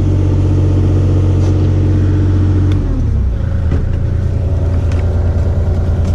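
Kubota 040 excavator's diesel engine running steadily, then dropping in speed about three seconds in, after which it runs with a pulsing low rumble and a steady higher whine.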